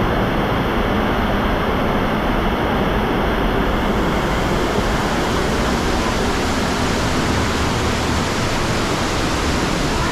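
Waterfall rushing: a steady, loud roar of falling water that turns hissier about four seconds in.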